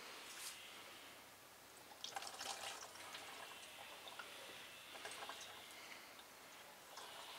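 Antifreeze trickling and dripping faintly out of a large plastic cartridge filter housing, with small clicks of the housing being handled about two seconds in. It drains slowly, which the owner puts down to the filter cartridge being clogged.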